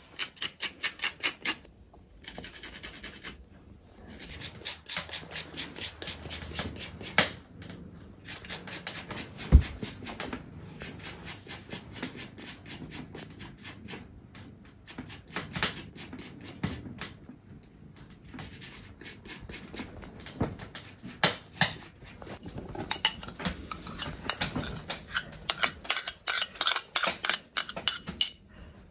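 Garlic being grated on a small metal hand grater over an enamel bowl, in quick rasping strokes at the start. Then scattered clinks and scrapes of a metal spoon in the bowl as the batter is worked, busier near the end.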